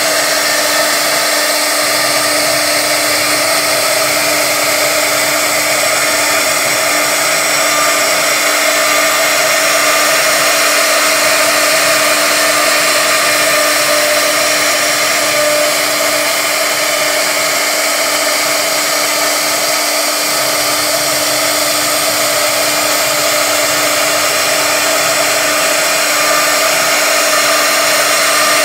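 CNC router spindle running steadily with a small carving bit, milling a quilted relief pattern into a wooden board: a continuous whine over the hiss of cutting.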